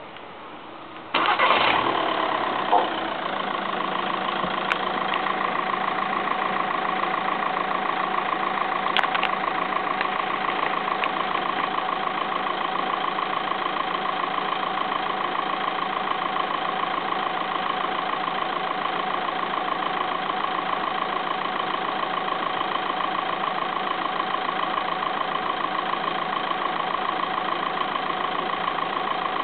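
A VW Caddy ambulance's engine starting about a second in, then idling steadily.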